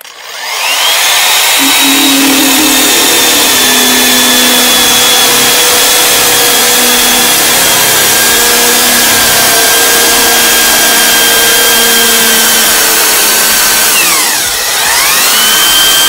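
Handheld electric core drill with a 125 mm core bit spinning up and cutting into a plastered wall, its motor whine steady and sagging slightly under load, without hammer action. About 14 seconds in, the whine drops sharply as the drill slows and then climbs back up to speed.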